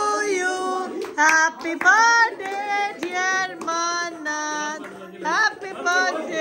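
A child singing a melody, holding notes and sliding up into some of them.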